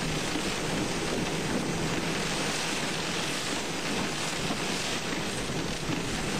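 Heavy rain and strong thunderstorm winds hitting a moving car, heard from inside the cabin as a steady noise.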